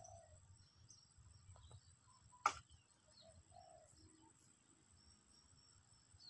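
Faint, sparse bird chirps over near-silent outdoor ambience, with one sharp click or tap about two and a half seconds in.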